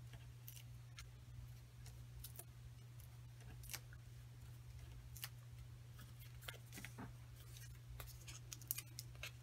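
Faint, scattered small clicks and ticks of paper handling as foam adhesive dimensionals are peeled from their backing sheet and pressed onto a cardstock panel, over a low steady hum.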